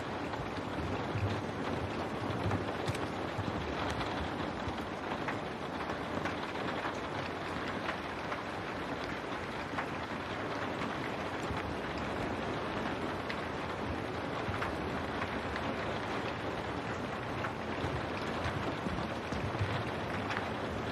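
Steady rain against window glass: a continuous hiss with scattered sharper drop ticks, and a low rumble that swells now and then underneath.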